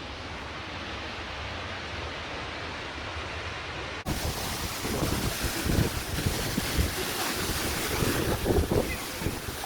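Steady rushing roar of a tall waterfall, about 125 feet, pouring into its pool. About four seconds in, the sound cuts to a louder, brighter take with wind gusting on the microphone.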